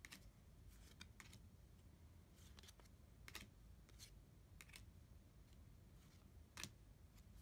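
Near silence with faint, irregular clicks of trading cards being flipped and handled, about a dozen in all, the loudest near the end.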